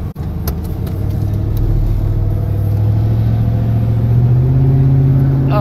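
Car engine running with road noise, its low hum rising slowly in pitch as the car gathers speed.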